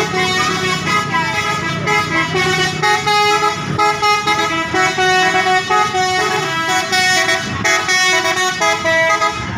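Indonesian 'telolet' bus horn, a set of musical horns playing a tootling tune. Several tones sound together and step between pitches in short notes, over and over.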